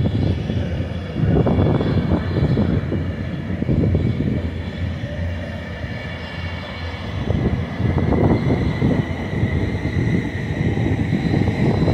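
Class 390 Pendolino electric train passing through at speed: a loud rumble of wheels on the rails that swells and eases several times as the bogies go by, with a faint steady high whine above it.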